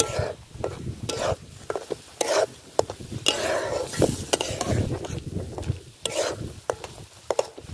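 A long metal spoon stirring a thick masala paste in a steel pan, with repeated sharp clicks and scrapes against the metal. The paste sizzles as it fries.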